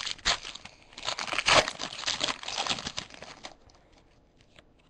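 Foil trading-card pack wrapper crinkling and tearing as it is opened and handled. It stops about three and a half seconds in.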